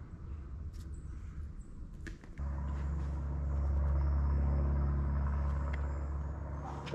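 A low engine drone made of steady tones, starting suddenly about two seconds in, swelling and then easing off.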